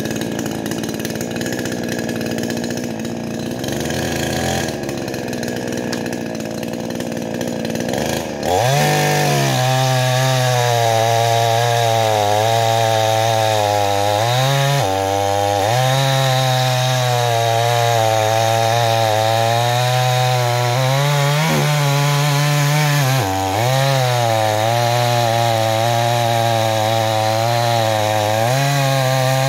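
Chinese-made 52cc two-stroke chainsaw with a 22-inch bar cutting through a large log. It is quieter for the first eight seconds or so, then runs at full throttle, its pitch dipping briefly a few times under load in the wood.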